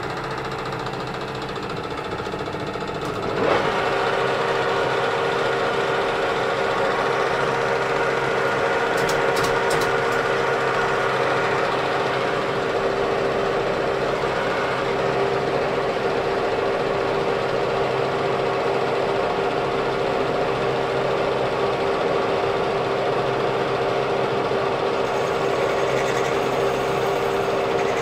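Metal lathe running with a steady geared hum, which steps up louder about three and a half seconds in and then holds even.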